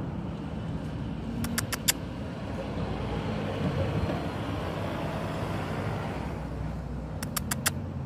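Road traffic: a motor vehicle's engine hum and tyre noise swell as it passes and then fade. Two quick runs of about four sharp ticks come about a second and a half in and again near the end.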